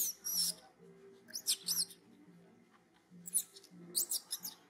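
Baby long-tailed macaque squealing in four short bouts of high, sliding cries about a second apart, an infant crying to nurse.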